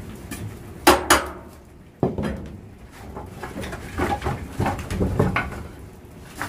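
Firewood being loaded into a wood-fired maple syrup evaporator: metal clanks and wooden knocks as split logs go into the firebox. Two sharp knocks come about a second in, then a run of uneven clunks from about three to five and a half seconds.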